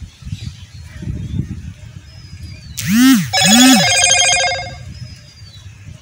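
Two quick rising-and-falling honks, then a bell ringing in a rapid trill for about a second and a half. Under it there is a low rumble of wind on the microphone and a few thin, faint, falling bird whistles.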